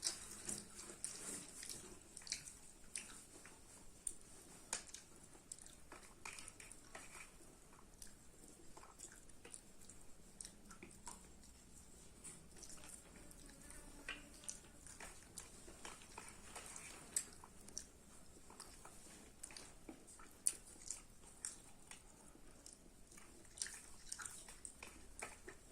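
Close-up chewing and mouth sounds of a person eating chicken curry and rice: frequent small wet clicks and smacks at an irregular pace.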